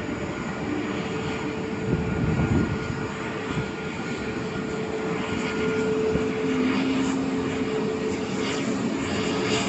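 Jet engines of an Airbus A320neo airliner running as it rolls along the runway: a steady jet noise with a held whine, a second lower whine joining about two-thirds of the way through as the sound grows slightly louder.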